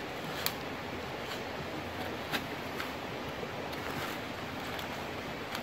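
A wooden stick jabbing and scraping into dry leaf litter and soil, with several short sharp knocks, the loudest about half a second and two and a half seconds in, over a steady rush of a nearby stream.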